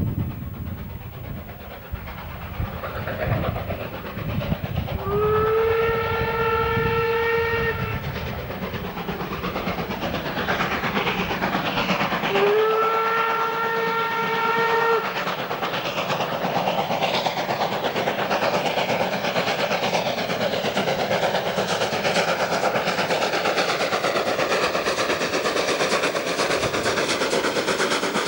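Class 52 steam locomotive working hard at the head of a heavy freight train, growing louder as it approaches. Its steam whistle sounds twice, two long blasts of about two and a half seconds each, each sliding up slightly as it starts. The wagons' wheels keep up a running clatter on the rails.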